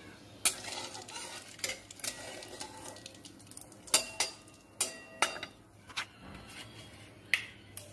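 Flat metal spatula knocking and scraping against a metal karai (wok) with oil in it: a string of sharp clanks, about ten in all, some ringing briefly.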